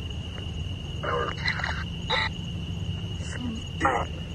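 Spirit-box app (necrophonic app) on a phone speaker putting out short, choppy fragments of voice-like sound, several clipped bursts, taken by the investigators as the word "friend". Behind it, crickets chirp in a steady high-pitched chorus.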